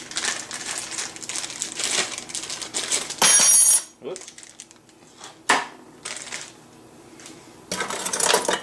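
Parts being unpacked by hand: plastic wrapping rustles, then a small metal part is set down on the countertop with a bright metallic clink and ring about three seconds in. A single click follows, and near the end the coiled braided-metal probe cables rustle as they are lifted in the cardboard box.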